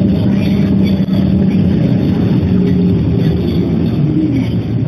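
Diesel engine of SBS Transit bus SBS8877K running steadily as the bus drives along, heard from on board: a continuous drone with slight shifts in pitch over a low rumble.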